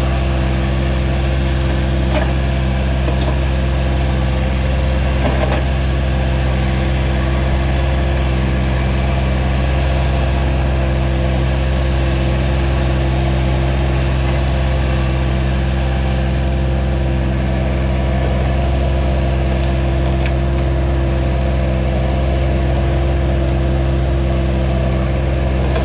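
Vermeer CTX160 mini track loader's engine running at a steady, unchanging speed while the machine works a stump with its stump bucket.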